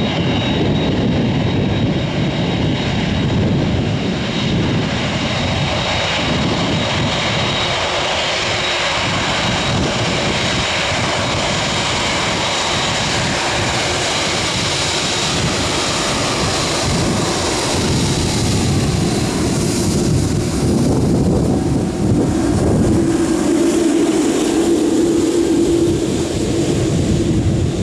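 Airliner passing close by with its engines running loud and steady. A whine in the engine noise falls in pitch about two-thirds of the way through as it goes past.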